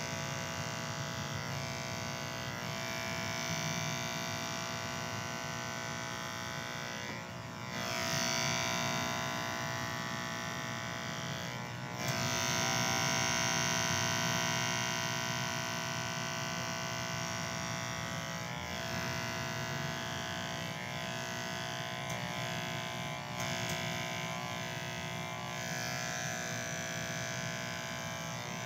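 Electric hair clippers buzzing steadily while cutting hair, the buzz briefly dipping twice, about seven and twelve seconds in.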